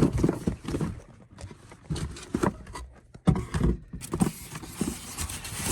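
Rummaging through a storage tote of boxed die-cast cars: irregular knocks and clatter of packages being handled and shifted, with a steady rustling hiss from about four seconds in.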